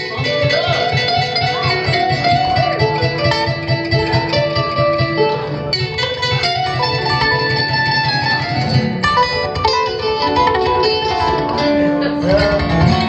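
Live acoustic band music: plucked guitar and kamale ngoni with fiddle and percussion playing a bluegrass–West African fusion tune over a steady driving beat.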